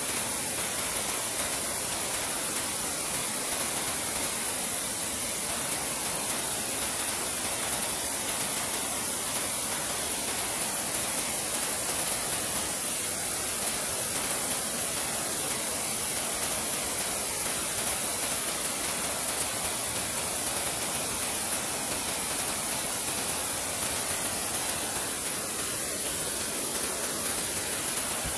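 Steady rushing of flowing river water, even throughout, with a constant high-pitched hiss over it.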